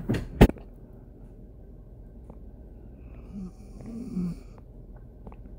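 Two sharp clicks near the start, then a person's faint breathing with a couple of short low throat sounds.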